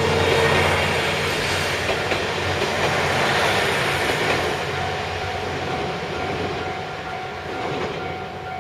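Train passing over a level crossing, its wheels clacking over the rail joints. The sound is loudest about half a second in and fades slowly as the train moves off.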